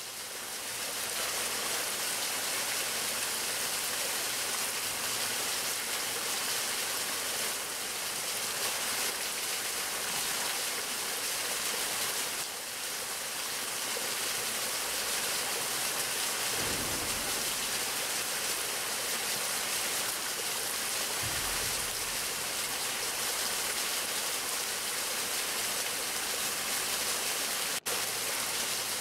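Steady, even rain-like hiss with no drumming, broken by two dull low thuds in the middle and a momentary dropout near the end.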